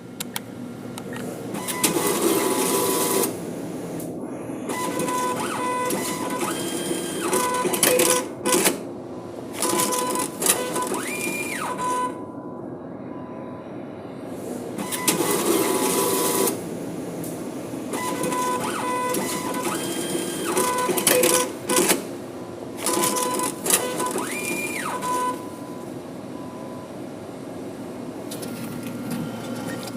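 ATM machine working through a cash withdrawal: mechanisms whirring and clattering, with short beeps and a brief rising-then-falling tone. The whole sequence plays twice.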